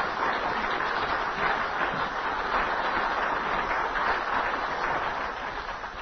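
Audience applauding, a steady patter of many hands clapping that starts to taper off near the end.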